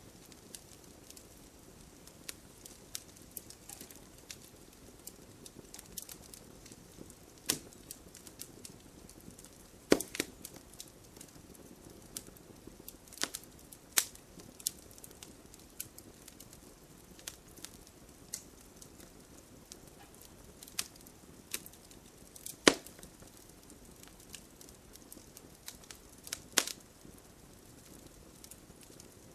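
Campfire burning wood: irregular sharp pops and crackles over a soft low hiss, with a few much louder snaps spread through.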